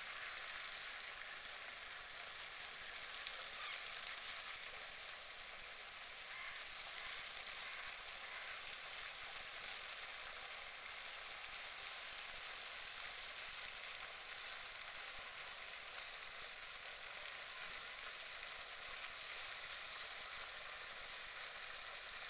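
Steady, even hiss of background noise with no distinct calls standing out.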